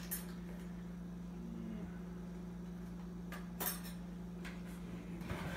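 A few scattered clinks and clicks of cutlery being handled, the loudest a little after halfway through, over a steady low hum.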